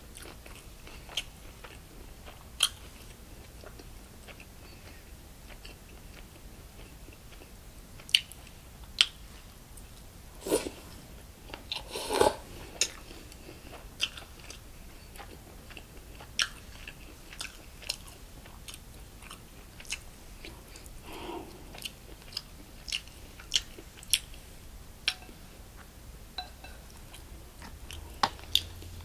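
Close-miked eating of a bossam meal of boiled pork, kimchi and salad: chewing and crunching, with scattered sharp clicks throughout and a few louder crunches about halfway through.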